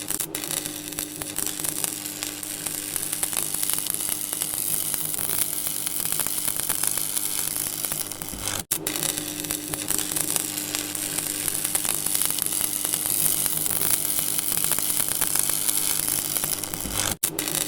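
Electric buzzing sound effect: a steady mains-like hum under a continuous crackling, sizzling hiss of electricity. It cuts out for an instant about halfway through and again near the end, as the loop restarts.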